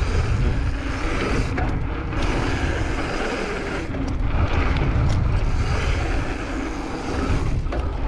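Steady low wind rumble on a helmet-mounted GoPro's microphone, with road and traffic noise and a few light clicks.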